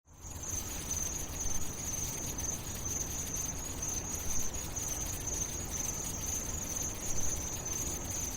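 Crickets chirping in a steady high trill, over an even background hiss.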